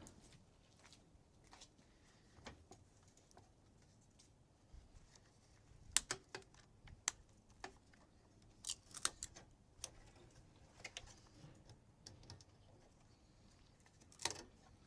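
Sparse sharp clicks and light metallic taps of hand tools working on a microwave's sheet-metal parts during disassembly, the loudest about six seconds in, a cluster around nine seconds, and one near the end.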